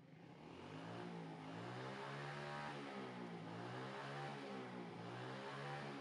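A motor vehicle engine running, swelling in over the first second and then holding steady, with its pitch wavering up and down.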